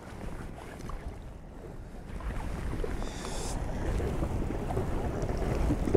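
Wind buffeting the microphone over sea water lapping around a drifting small boat. It grows slowly louder, with a brief hiss about three seconds in.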